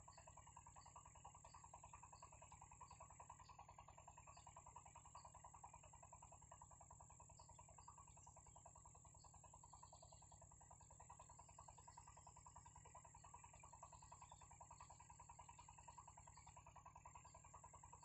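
Near silence: a faint steady outdoor background with a short high chirp repeating about twice a second.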